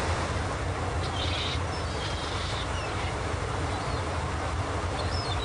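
Steady low rumble and rushing noise of a ferry under way, heard from its open deck: engine drone mixed with wind and the churning wake. A few faint high chirps come between about one and three seconds in.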